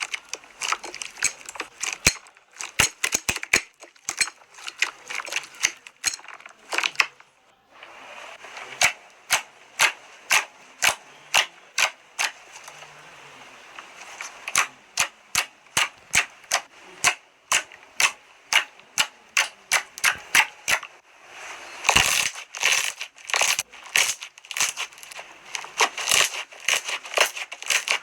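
Slime being squeezed and pressed, making sharp pops and clicks in quick runs, with a short pause about seven seconds in. Through the middle the pops fall into a steady pace of about two a second.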